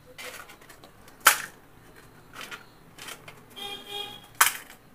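Crisp fried puchka (pani puri) shells being cracked open by fingers: a sharp crack about a second in and another near the end, with smaller crackles between.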